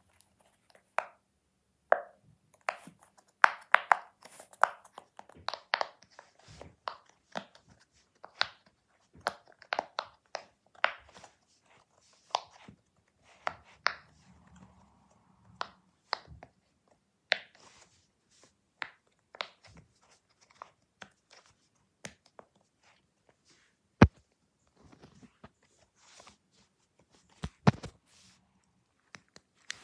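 Silicone pop-it fidget toy having its bubbles pressed in by fingers one after another: a series of short, sharp pops at irregular intervals, about one or two a second, a few of them louder than the rest.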